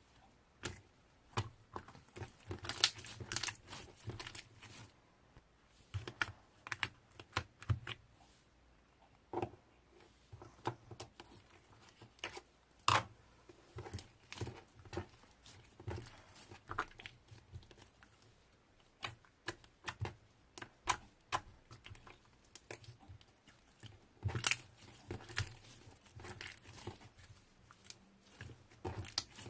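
Slime being squeezed and pressed by hand, giving irregular sharp clicks and crackling pops in loose clusters, with a short lull in the middle.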